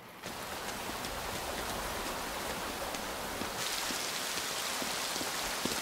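Heavy rain falling on pavement: a steady hiss of rain that comes in abruptly about a quarter second in and grows brighter and louder about three and a half seconds in.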